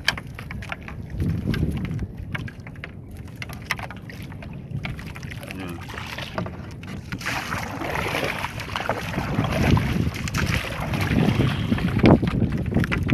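Sea water sloshing and splashing against a small outrigger boat as a fishing net is hauled in over the side, with scattered knocks on the hull and wind on the microphone. The splashing grows louder in the second half.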